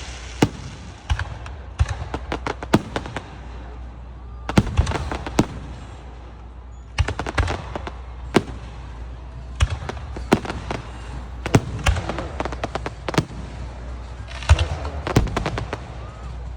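Aerial fireworks going off: a run of sharp bangs, some single and some in quick crackling clusters, with a steady low rumble underneath.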